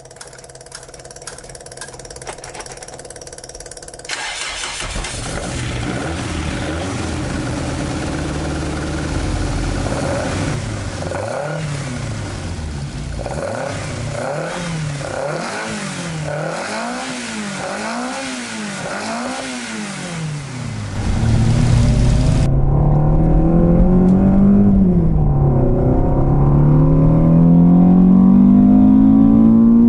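Toyota AE86's 5-valve 4A-GE twin-cam four-cylinder with individual throttle bodies starting about four seconds in, then idling. From about 11 to 20 s it is blipped several times, each rev rising and falling. Heard from inside the cabin in the last third, it pulls hard under full throttle, the pitch climbing, dipping at a gear change, and climbing again.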